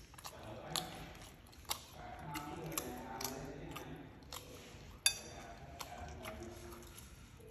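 A person chewing and biting food close to the microphone: wet chewing with scattered sharp crunches and mouth clicks, the loudest about five seconds in.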